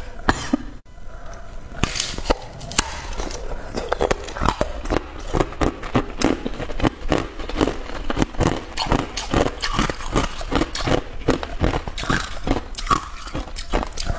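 Hard clear ice being bitten and chewed close to the microphone: a steady run of crisp crunches, about three a second.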